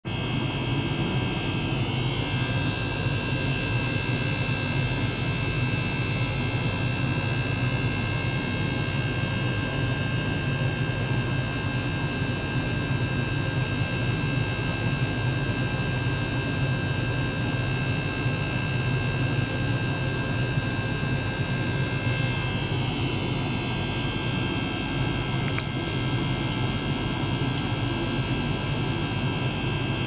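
Small electric liquid-circulation pump running steadily, pushing water through plastic tubing into a small tank: a continuous low hum with several thin, steady high-pitched tones above it that shift slightly a couple of times.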